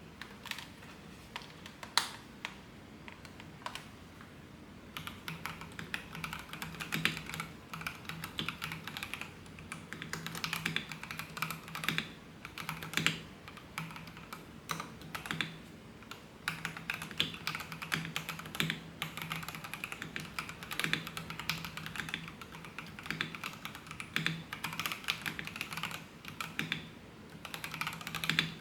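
Fast typing on an FL Esports FL750 mechanical keyboard: a few scattered keystrokes at first, then a dense, quick run of key clicks from about five seconds in.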